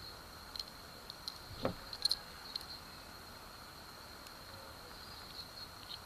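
Handling noise from Swiss Army knives turned in the hands: a few small clicks and taps, a soft knock about one and a half seconds in and a quick cluster of clicks just after. A faint steady high whine runs underneath.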